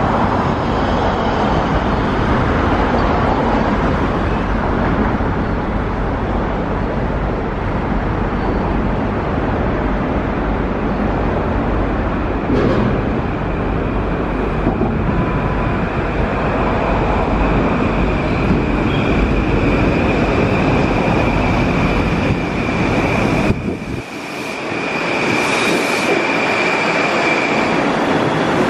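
Long Island Rail Road Kawasaki M9 electric train running into the station: a steady rumble of wheels on rail, then a steady high-pitched squeal over the last several seconds as it slows alongside the platform.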